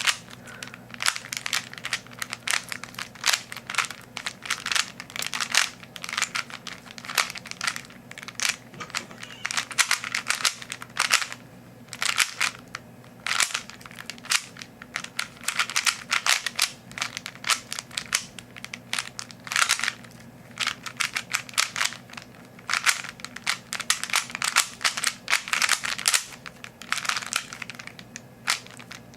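Rubik's Cube being turned rapidly in a speed solve: a fast, irregular clatter of plastic layer-turn clicks in quick flurries with brief pauses between them.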